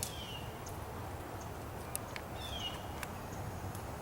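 Small birds calling: a short, slightly falling chirp at the start and another about two and a half seconds in, with scattered brief high chips between, over a steady low background rumble.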